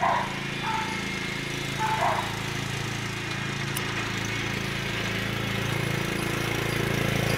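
Riding lawn mower engine running steadily, getting louder over the last few seconds as the mower drives closer. A dog gives a few short barks in the first two seconds.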